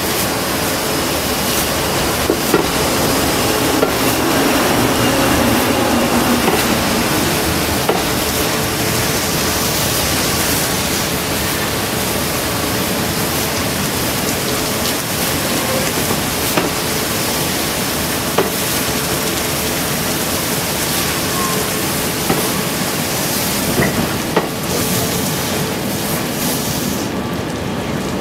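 Water jets of a train-washing plant spraying steadily against the side of a slowly passing electric commuter train, a loud, even hiss. A few sharp clicks sound through it.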